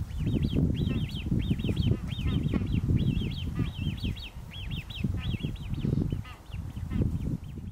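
Great crested grebe juvenile's high, piping begging calls, short rising-and-falling notes repeated several times a second, thinning out near the end, over a low, uneven rumble.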